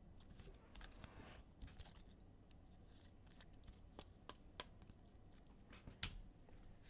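Faint handling of trading cards: a brief swish about a second in, then scattered light clicks as the cards are slid and flipped through.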